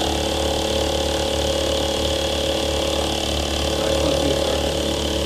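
Belt-driven Grizzly G0704 CNC milling machine running steadily, with a constant low hum and a steady high whine.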